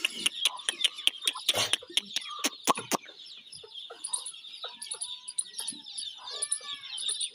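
Chickens clucking, with short arched calls in the second half. Many sharp clicks and knocks fill the first few seconds.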